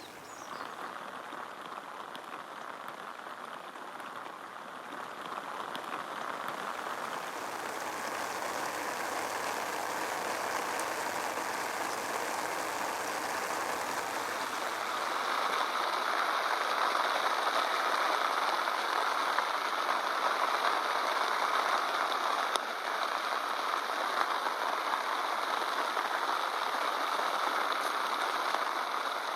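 Rain pattering steadily on an umbrella canopy, a dense even patter that grows louder through the first half.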